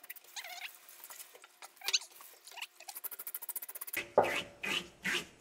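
Salmon scales being scraped off with a small metal bottle cap: a rapid run of quick scratchy strokes against the skin. About four seconds in come a few heavier, louder strokes.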